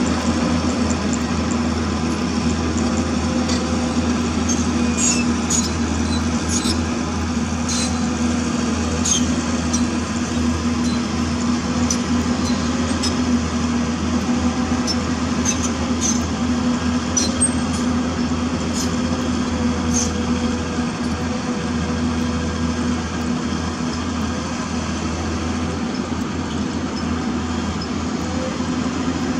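Hyundai crawler excavator's diesel engine running steadily with a low hum while the machine works its arm and bucket. Short high-pitched ticks are scattered through the first two-thirds.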